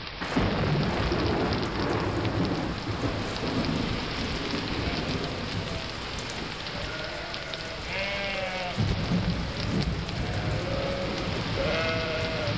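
Rain falling steadily into standing water on a hard surface, a dense, even splashing hiss. A few brief wavering pitched sounds rise above it about eight seconds in and again near the end.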